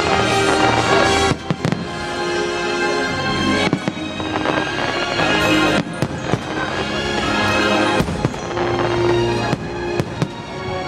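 Fireworks bursting, sharp bangs every second or two and often in close pairs, over the show's music soundtrack.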